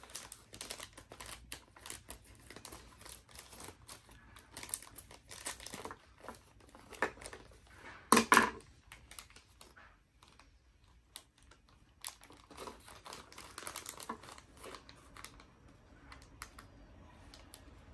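Clear plastic packaging bag crinkling and rustling as it is cut open with small scissors and picked apart by hand, in many short crackles with one louder burst a little past halfway.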